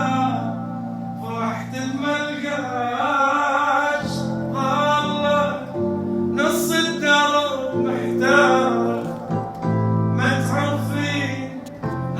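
A man singing an Arabic song over instrumental accompaniment, his voice bending and wavering around held notes while low accompanying notes sustain beneath it.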